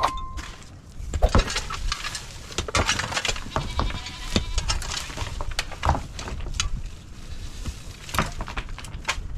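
Shovels and a pickaxe scraping and striking stony soil, with dirt and stones thrown into a metal wheelbarrow in irregular knocks and clatters. Livestock bleat in the background.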